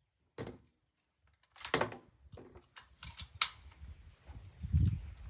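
Metallic clicks and clacks of an AR-style .300 Blackout rifle being handled after a string of shots: the magazine out and the action worked. There are several separate clicks, the sharpest about three and a half seconds in.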